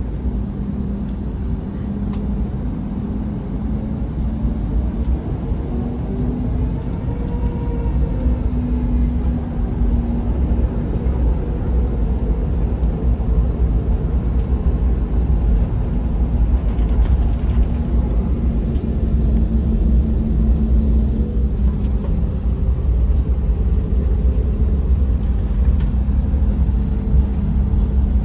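Airbus A321neo's CFM LEAP-1A turbofans heard from inside the cabin, spooling up for takeoff: a heavy, steady rumble with engine tones that glide in pitch, growing slowly louder.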